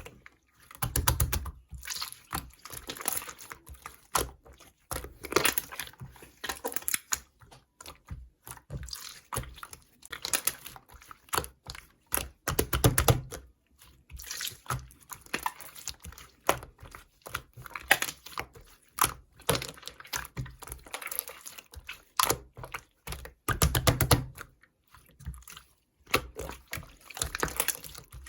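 Slime being squished and stretched by hand, making runs of rapid wet clicks and pops with short pauses between them.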